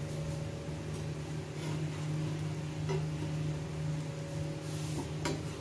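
Steel spatula clicking and scraping against a flat griddle (tawa) as browned roats are flipped over, a few light clicks spread through with a short scrape near the end, over a steady low hum.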